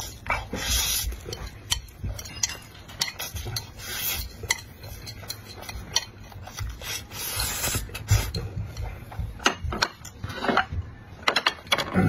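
Utensils clinking and scraping against a dish, with a few brief rustling swishes among scattered clicks.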